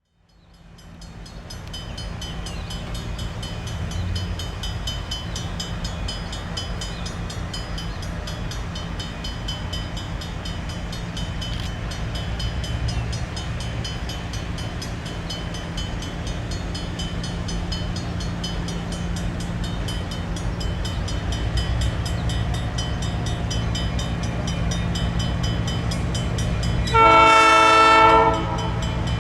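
EMD GP7u diesel locomotive engine running with a steady low drone, then one short, loud blast of its air horn near the end.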